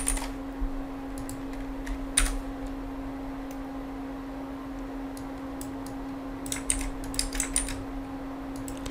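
Computer keyboard typing: a few scattered keystrokes near the start and about two seconds in, then a quick run of keystrokes between about six and a half and eight seconds, over a steady low hum.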